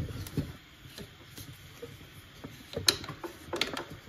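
A 3D-printed ABS part clicking and knocking against the printer as it is pushed and snapped into place: a few sharp plastic clicks, the loudest about three seconds in and a quick run of them near the end.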